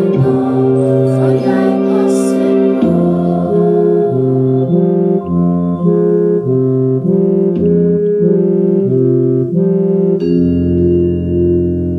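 Instrumental stage music: slow, sustained chords with a low bass line, changing in steps every half second or so, settling onto one long held chord about ten seconds in.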